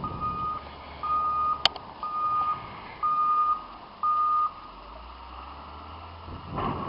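Reversing alarm of a snow-plowing wheel loader: five even beeps, one a second, that stop about four and a half seconds in, over the low drone of its engine. A single sharp click comes between the second and third beeps, and a rush of noise comes near the end.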